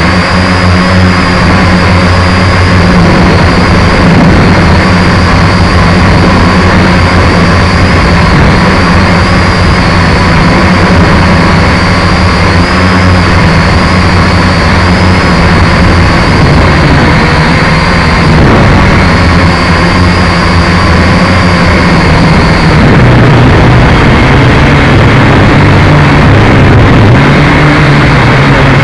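Quadcopter drone's electric motors and propellers buzzing loudly and continuously, heard close up from its own onboard camera. The tone changes about 23 seconds in, when a high whine drops out and the low hum shifts pitch.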